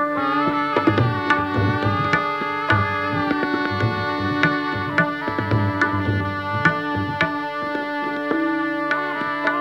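Hindustani classical music: a shehnai playing a sliding, ornamented melody over tabla strokes and a steady drone.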